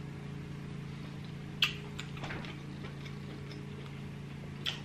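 Mouth sounds of chewing seafood: a few short wet clicks and smacks, the sharpest about a second and a half in. They sit over a steady low background hum.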